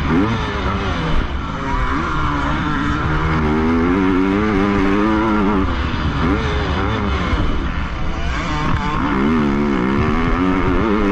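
Motocross bike engine revving hard, its pitch climbing and dropping repeatedly through the lap, with wind rushing over the helmet-mounted camera.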